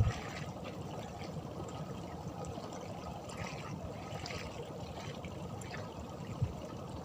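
Faint, steady trickling and washing of water, with a few small ticks and a light knock at the start.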